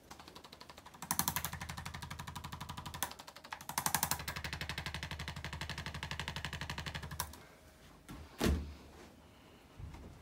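Rapid, even machine-like tapping, many taps a second, starting about a second in, dipping briefly around three seconds in, then running on until about seven seconds in. A single sharp thump follows about a second later.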